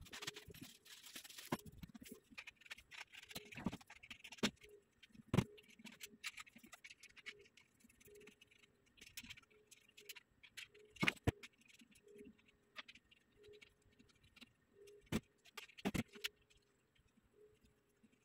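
Metal bed frame being handled during assembly: scattered knocks and clicks of the steel frame and headboard, the sharpest about five, eleven and fifteen to sixteen seconds in, with rustling in the first couple of seconds.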